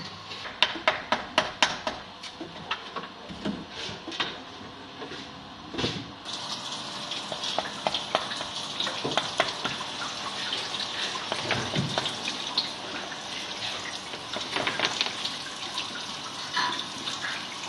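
A quick run of sharp knocks and clicks as the mould is broken away from a kiln-cast glass piece. From about six seconds in, running water hisses steadily, washing the mould material off.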